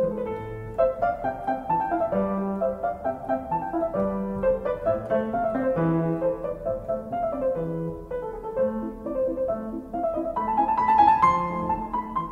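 Piano music: a flowing melody over a slower bass line.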